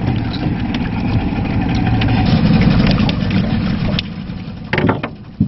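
Small fishing boat's engine running steadily, then dropping away about four seconds in, followed by a few sharp knocks near the end.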